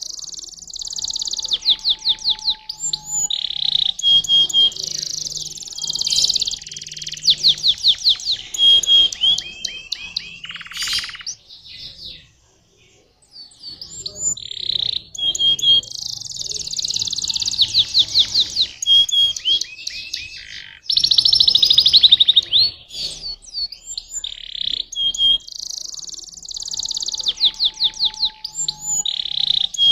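Domestic canary singing a long, varied song of fast trills and rolling phrases. The song breaks off briefly about twelve seconds in, then starts again.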